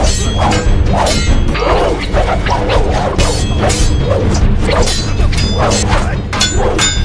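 Fight sound effects of a broadsword clashing against another weapon: a quick run of metallic clangs, about two to three a second, with ringing after many of them, mixed with swishes of the swings and dull hits.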